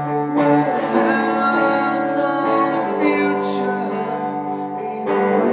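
Electric guitar playing ringing, sustained chords in a live rock song, with a man singing over it.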